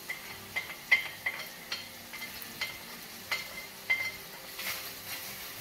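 Chicken frying in oil in a pan with a steady sizzle, while a wooden spoon clinks and scrapes chopped onion and garlic off a ceramic plate into it: a run of sharp, ringing clicks. A louder hiss of sizzling comes about four and a half seconds in as the onion meets the hot oil.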